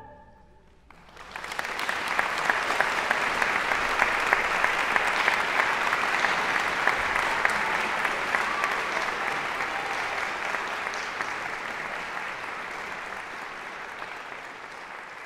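The last of a women's choir's final chord dies away in the hall's reverberation, then an audience breaks into applause about a second in. The applause holds steady, then slowly fades toward the end.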